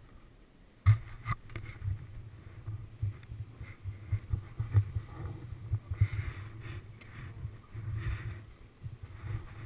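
Muffled bumps and rustling picked up by a helmet-mounted action camera as the wearer moves his head and hands, with one sharp knock about a second in.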